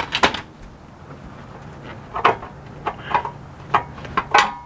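Knocks, clicks and rattles of the underbody access panel being worked loose and pulled off by hand. A few sharp clicks come at the start, then scattered knocks, and one near the end rings briefly.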